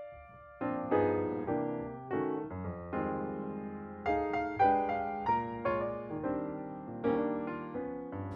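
Background music: piano or electric piano playing a gentle melody of distinct notes, briefly pausing just under a second in.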